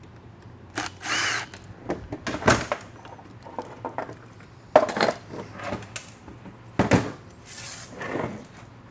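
Cordless ratchet whirring in short bursts on the bolts of an automatic transmission's solenoid pack and valve body, with sharp metal knocks and clanks as the aluminium valve body is worked loose and set down on a steel bench.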